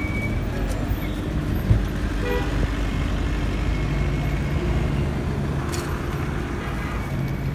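Busy city street traffic: car engines running steadily, with a short car horn toot about two seconds in.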